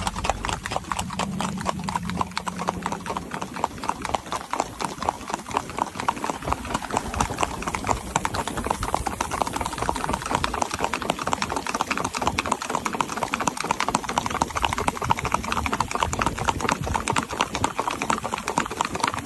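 A horse's hooves clip-clopping on asphalt: a rapid, steady stream of hoofbeats as it moves along the road at a brisk, even pace.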